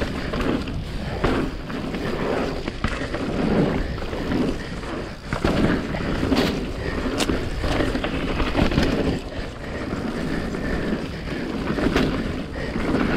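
Mountain bike rolling fast down a dirt singletrack: a steady rush of tyre noise over the dirt with wind on the microphone, broken by a few sharp clicks and rattles from the bike over bumps.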